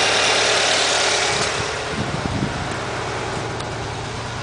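Renault 16-valve four-cylinder petrol engine idling roughly and unevenly, misfiring: it is running on three cylinders, which the owner puts down to failed ignition coil packs. It gets a little quieter about a second and a half in, with a few soft thumps around two seconds in.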